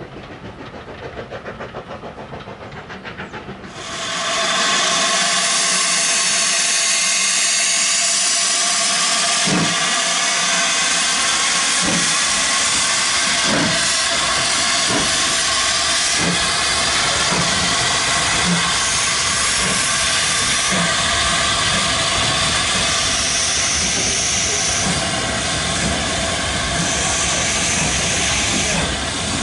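A train rattles past at a distance, then a steam locomotive at the head of a goods train is heard close by, with a loud steady hiss of escaping steam. From about a third of the way in, exhaust beats cut through the hiss, slow at first and coming steadily quicker as the engine gets the train moving.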